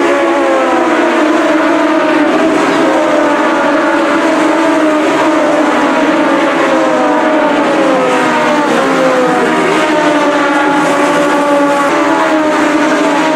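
A pack of motorcycle-engined Legends race cars going through a corner, many high-revving engine notes overlapping, repeatedly sliding down in pitch and climbing again.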